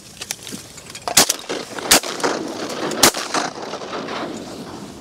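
Three shotgun shots, spaced roughly a second apart, each a sharp loud blast over steady background noise.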